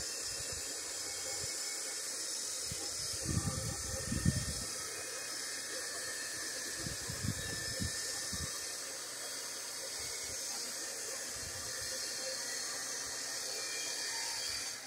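Steady high-pitched outdoor hiss, with low rumbles about three to four and a half seconds in and again around seven to eight seconds in.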